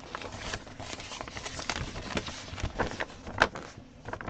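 A large printed paper chart crackling and rustling as it is handled and shifted, with irregular crinkles and one sharper crackle about three and a half seconds in.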